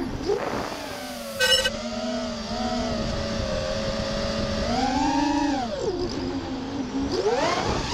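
Brushless motors and 5-inch three-blade props of an FPV racing quadcopter whining, the pitch swinging up and down with throttle. A short, higher-pitched chirp comes about a second and a half in.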